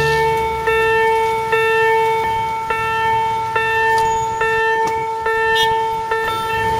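Railroad crossing warning bell ringing, a dinging strike repeated a little more than once a second over a steady high tone.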